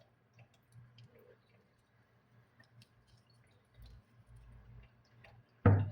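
Faint scattered clicks and small handling noises, then a sudden loud knock near the end.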